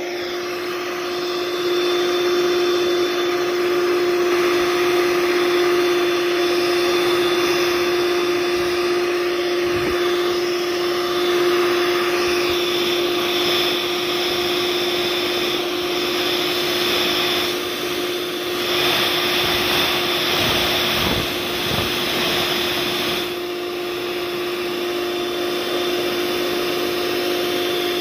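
An electric motor appliance running without a break: a steady hum at one pitch over a rushing whir, with small dips in the middle stretch.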